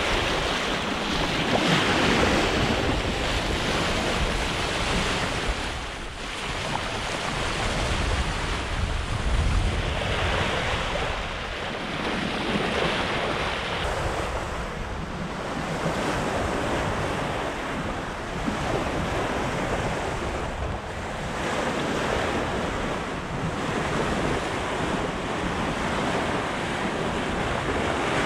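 Sea water rushing and splashing along the hull of a Hallberg-Rassy 54 sailing yacht under way downwind, surging and easing every few seconds as the boat rolls in the swell, with wind buffeting the microphone.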